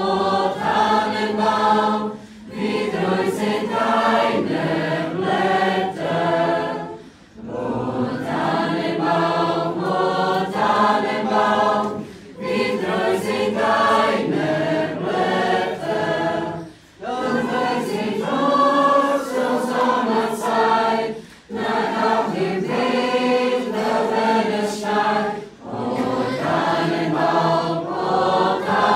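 Mixed-voice choir singing unaccompanied, in phrases of about five seconds with brief breaks for breath between them.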